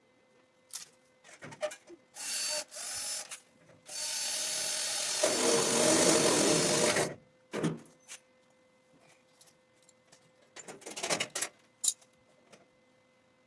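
Metalworking tool noise during sheet-metal fender fabrication: two short bursts, then a longer loud run of about three seconds, with scattered clicks and knocks of handling metal around them.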